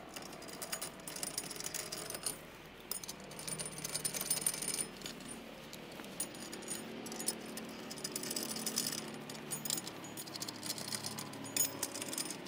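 Repeated small metallic clinks and rattles of steel wheel nuts being run onto the studs of a freewheeling towing hub, each nut held in the end of a socket.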